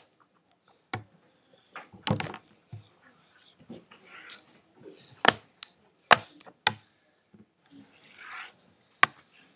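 Hands handling and tapping the laptop lid close to its built-in microphone: irregular sharp taps and knocks, the loudest about five and six seconds in, with soft rustling between them.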